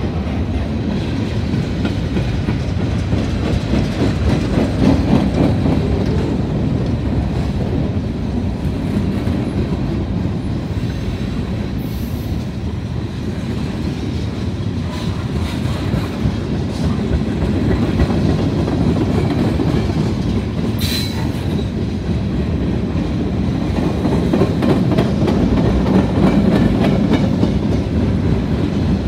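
Freight cars rolling past on the rails: steady wheel and rail noise. There are a couple of brief high squeaks about twelve and twenty-one seconds in.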